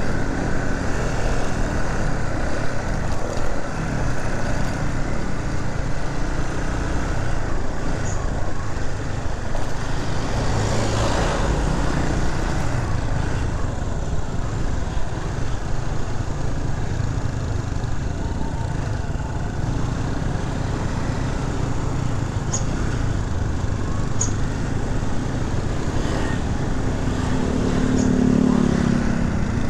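Motorcycle engine running steadily as the bike is ridden slowly, with a continuous low rumble; the sound swells briefly about eleven seconds in and again near the end.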